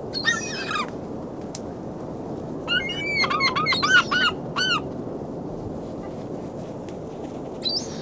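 Gulls calling: one call at the start, a rapid run of short arching calls in the middle, and one more near the end, over the steady wash of surf.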